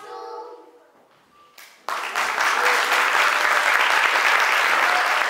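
Audience applause breaking out suddenly about two seconds in, after young children's singing fades out, then clapping steadily.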